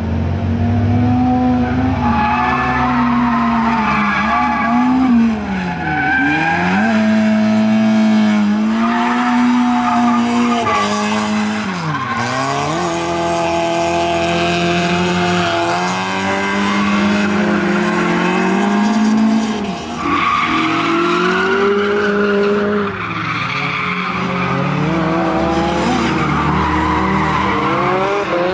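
Toyota AE86's four-cylinder engine revving hard on a circuit lap, its pitch climbing and falling, with two sharp drops and recoveries, over continuous tyre squeal from drifting.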